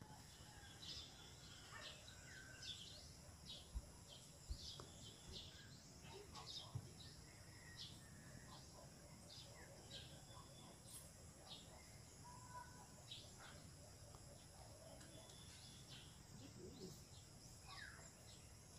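Faint birdsong: small birds chirping in short, scattered calls, with a couple of soft clicks about four seconds in.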